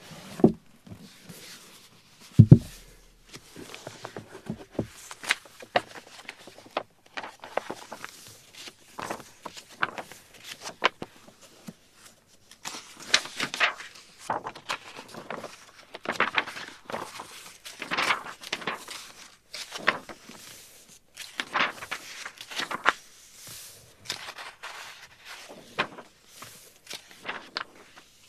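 Footsteps walking at an even pace, each step a short, noisy scuff, with two heavier low thumps in the first few seconds.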